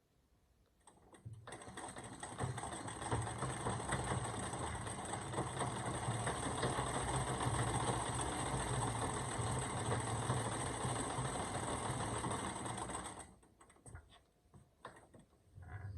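Treadle-driven Singer 319K sewing machine stitching. It starts about a second in, runs steadily for about twelve seconds, then stops, with a few faint clicks after.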